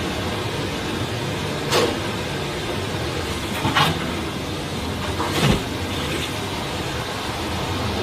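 Steady rush of a forest stream's flowing water, with three short sharp knocks about two seconds apart.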